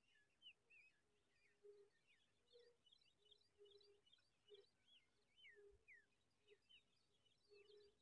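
Faint outdoor birdsong: many short, high chirps and whistled glides running on without a break, with a low note repeating about once a second underneath.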